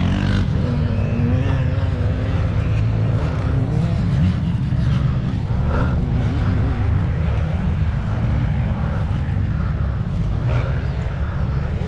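Dirt bike engines running: a steady low drone with fast even pulsing and no break.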